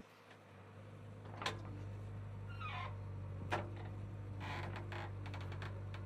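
JCB 3DX backhoe loader's diesel engine running with a steady hum while the backhoe arm works, with sharp clanks from the arm and bucket, a falling creak, and a run of clicks as the bucket digs into the soil.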